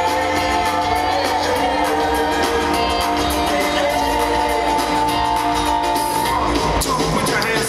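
Live band playing with singing over guitar and a steady bass line.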